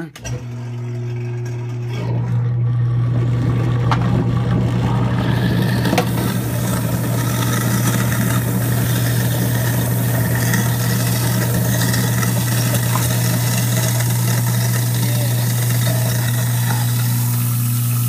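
Kitchen-sink garbage disposal motor switched on and running with a steady hum, grinding up lemons to clean its blades. A rushing, splashing noise joins about two seconds in, with a few sharp cracks from the pieces near four and six seconds.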